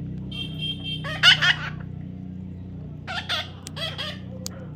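Baby parrot giving short calls, about four in the stretch, over a steady low hum.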